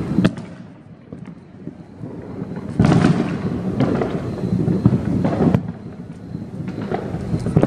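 Distant fireworks going off. A sharp bang comes just after the start, then a dense rumble of bursts from about three seconds in that cuts off suddenly a couple of seconds later, with a few scattered pops near the end.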